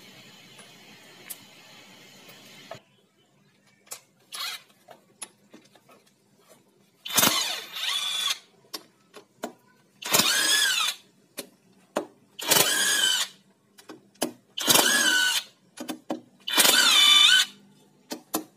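Handheld power driver undoing the bolts of a motorcycle engine's magneto cover in five short trigger bursts, each a whine that rises and falls in pitch. Small metallic clicks come between the bursts.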